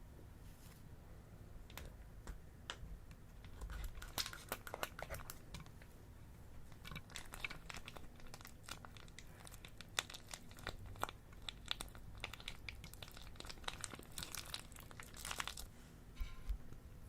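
Plastic piping bags and slime being squeezed and handled, crinkling and crackling in several clusters of crisp little clicks.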